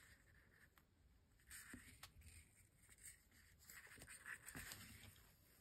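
Near silence with faint rustling and a few light ticks of a needle and thread being pulled through felt in hand-sewing.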